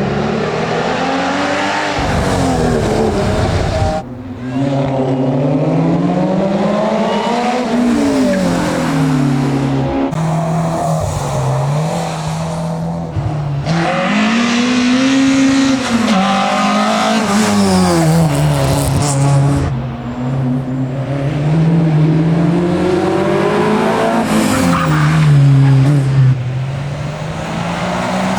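Competition car's engine driven hard on a hillclimb run. The revs climb and fall again and again through gear changes and lifts for corners, with brief dips in sound about 4 and 20 seconds in.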